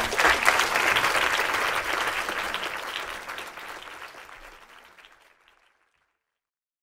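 An audience applauding, the clapping dense at first and dying away to nothing about five seconds in.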